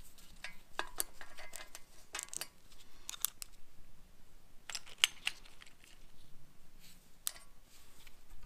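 Small metallic clicks and clinks of steel head bolts and washers being handled and knocked together, a dozen or so light taps with a brief ring, the sharpest about five seconds in.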